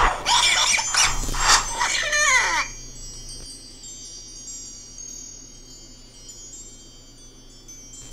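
A loud, harsh noisy sound ending in a falling squeal for the first couple of seconds, then high chime tones ringing and slowly fading.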